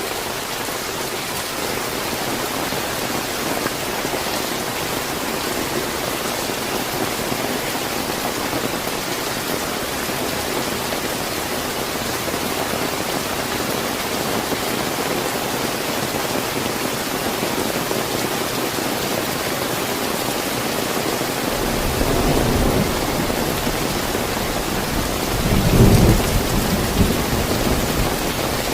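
Steady heavy rain, joined about three quarters of the way through by a deep thunder rumble that peaks a few seconds later.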